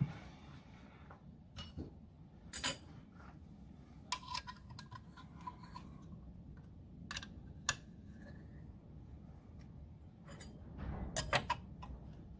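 Light metallic clicks, taps and rubbing from hand work on a lathe DRO scale's read-head bracket as it is squared up and adjusted with an Allen key, with a denser cluster of clicks near the end.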